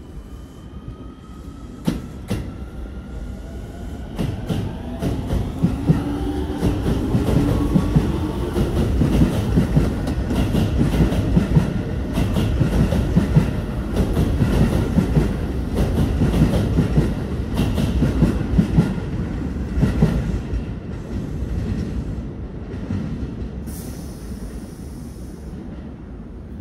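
Keio Line electric train passing through the station without stopping. A falling whine comes in as it approaches, then a building rumble with rapid clatter of wheels over rail joints, which fades over the last few seconds. A brief hiss comes near the end.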